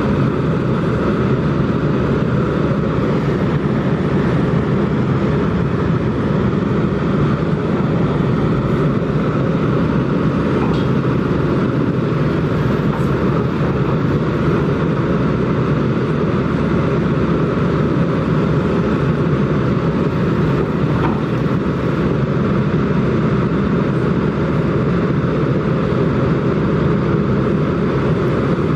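Kobelco SK200 excavator's diesel engine running steadily, with no letup and no distinct impacts.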